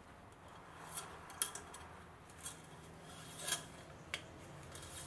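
Faint scraping and light clicks of a metal engine-oil dipstick being slid down its tube and seated: several short scrapes spread over a few seconds.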